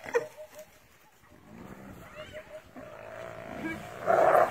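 Wild animals calling: runs of short, repeated high-pitched calls, then a drawn-out call and a louder cry near the end.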